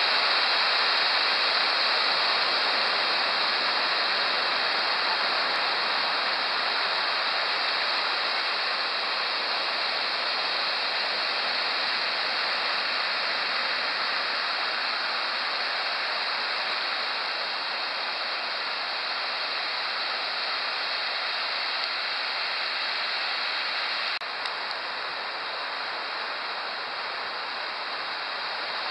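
Ocean surf breaking on a sandy beach: a steady, loud rushing of waves, a little quieter from about 24 seconds in.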